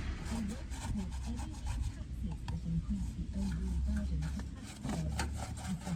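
Irregular rubbing and scraping strokes with small clicks, as of hand work on the van's bodywork.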